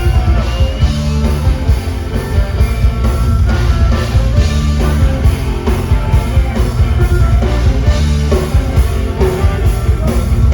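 Live punk rock band playing loudly at full volume, drums keeping a steady driving beat under the instruments, with no vocal line.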